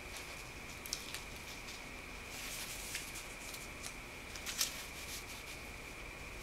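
A respiratory belt for a home sleep study being handled: a few light clicks and rustles of its strap and plastic fittings. A faint, steady, high-pitched whine runs underneath.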